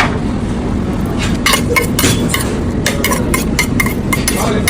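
Kitchen utensils clinking against dishes or a pan, a quick irregular series of sharp clinks starting about a second in, over a steady low background noise.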